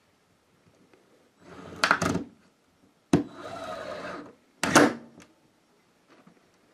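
The sash of a newly installed double-hung window sliding in its frame twice, each movement a short scrape with sharp knocks as it meets the frame or its stops; the hardest knock comes near the end.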